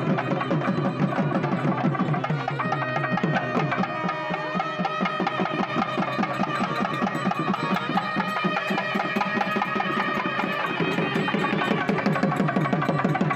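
South Indian temple procession music: a thavil barrel drum beaten in fast, dense strokes. A nadaswaram comes in a couple of seconds in, holds a melody over the drumming, and drops out about two seconds before the end.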